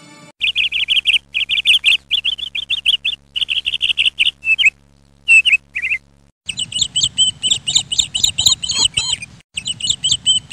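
Small birds chirping in quick runs of high, repeated chirps. About six seconds in the calls change to a different, busier pattern of chirps, which stops briefly near the end and then starts again.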